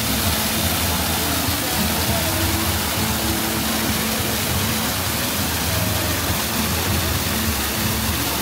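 Steady rush of falling and splashing water from the waterfalls and fountains of a walk-through water attraction.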